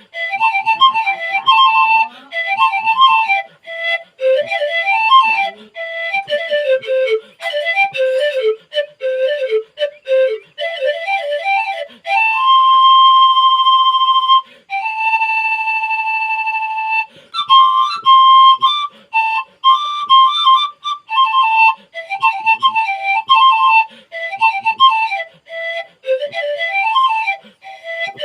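Isan wot (โหวด), a circular bamboo panpipe, played solo: a quick, lively tune of short running notes, broken about halfway through by two long held notes.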